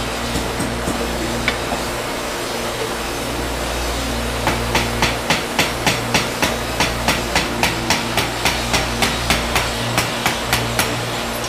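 Rapid, even hammer blows on metal, about four a second, beginning about four and a half seconds in and stopping shortly before the end. A steady machinery hum runs underneath.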